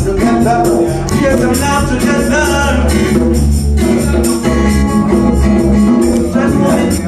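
Reggae music with a steady beat.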